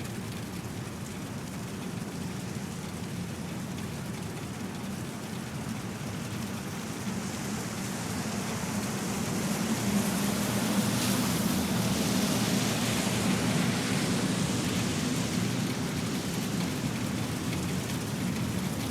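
Steady rain falling on pavement. A vehicle passes on the wet road: its tyre hiss swells in the middle and then slowly fades.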